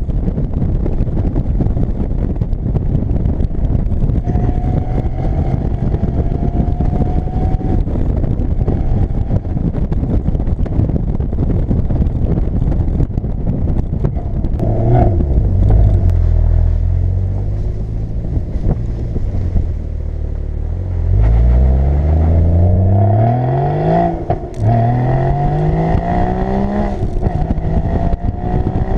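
Porsche Boxster Spyder's 3.8-litre flat-six driving with the roof down, wind and road rush heavy over the engine for the first half. Past the middle the engine revs rise and fall, then climb in several hard pulls with a drop in revs at each upshift.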